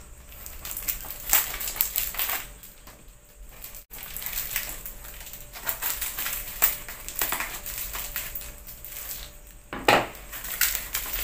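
Packing tape being peeled and torn off the end cap of a PVC shipping pipe, with irregular crackling and scraping of plastic, a short lull about three seconds in and a louder scrape near the end.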